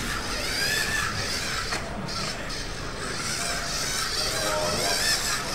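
Small electric motors of a LEGO Mindstorms robot whining as it drives, the pitch wavering up and down.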